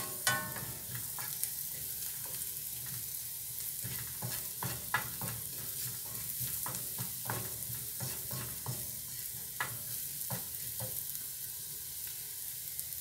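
Chopped onion, garlic and green chilli with ground spices sizzling in hot oil in a frying pan while being stirred with a spatula: a steady high sizzle with irregular scrapes and taps of the spatula against the pan.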